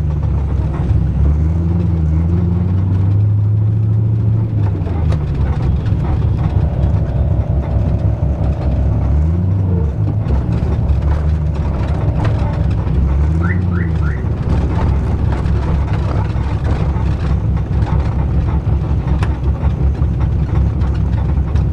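LS6 V8 of a swapped Nissan 240SX running loud and choppy, revved up and let fall back several times.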